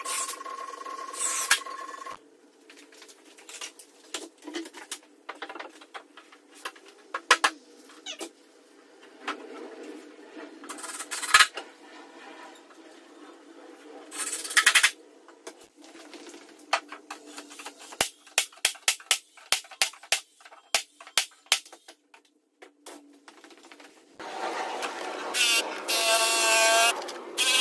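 Scattered knocks, taps and clicks as wooden wall panels are handled and fitted. Near the end, a cordless track saw on a guide rail starts up and cuts through a wooden board with a loud, steady whine.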